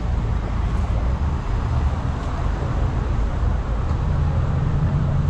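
Steady low rumble of motor vehicle and traffic noise.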